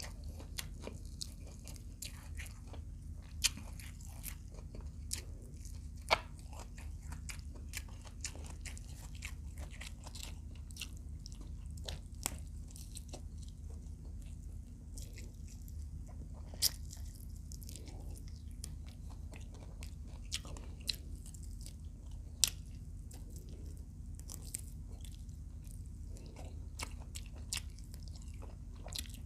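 Close-up mouth sounds of someone eating fried adobo quail: irregular crunching and biting of crisp skin and small bones, with wet chewing between, and a few sharper crunches standing out. A steady low hum runs underneath.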